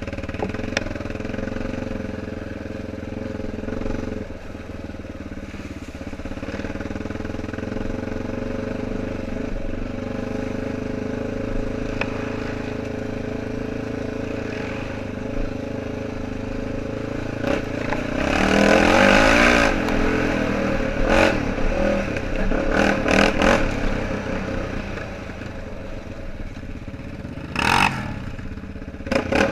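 ATV engine running steadily on a mud trail, revving up harder for a couple of seconds about two-thirds of the way in, with scattered clattering knocks.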